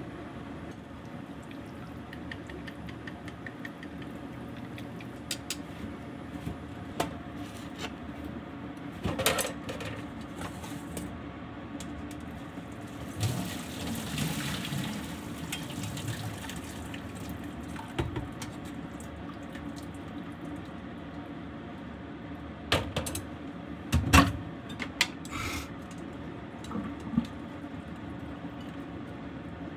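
Kitchen work at a stainless steel sink: water pouring into the sink for a few seconds in the middle as boiled pork is drained into a strainer, with scattered clatters and knocks of pots and utensils, over a steady low hum.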